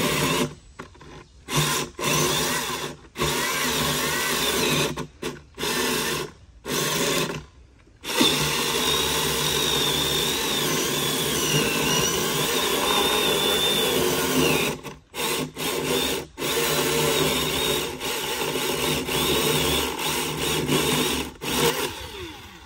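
Milwaukee M18 Fuel cordless electric chainsaw cutting through an ash log. The motor cuts out briefly several times in the first eight seconds and twice more a little past halfway, then runs in long stretches as the chain bites, its high whine wavering in pitch under load.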